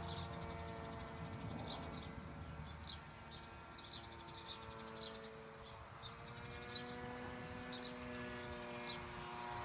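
Electric motor and 10x4.5 propeller of a foam-board Versa Wing RC flying wing droning high overhead: a faint, steady whine of several tones that drift slowly in pitch.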